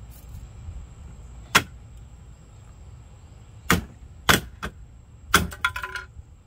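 Hammer striking the plastic body of a pink Hello Kitty Power Wheels ride-on toy car during dismantling: about five sharp knocks at irregular intervals, the last followed by a brief rattle.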